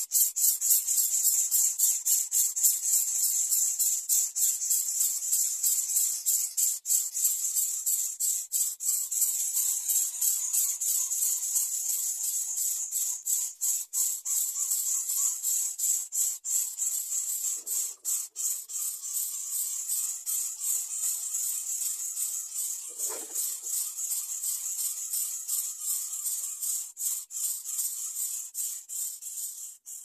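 Greater coucal nestlings begging: a rapid, even train of hissy rasps, several a second, fading toward the end as the chicks settle after the feeding.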